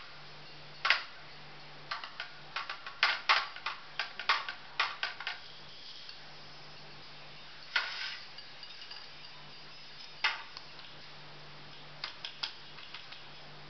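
Metal spoon clinking and knocking against steel utensils: quick runs of taps in the first few seconds, then a few single knocks, over a faint steady low hum.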